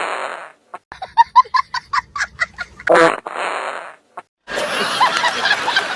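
Recorded fart sound effects played through a Bluetooth speaker: a short blast, then a rapid sputtering string of about ten short pitched toots, then another blast. A busier, denser sound starts about four and a half seconds in.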